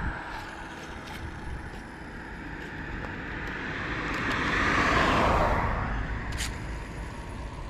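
A car driving past on the road: tyre and engine noise swells to its loudest about five seconds in, then fades away.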